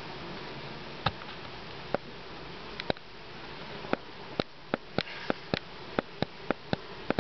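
Honeybees buzzing around hive entrances as a steady hum. It is broken by sharp clicks that come about three a second from the middle on, and these clicks are the loudest sound.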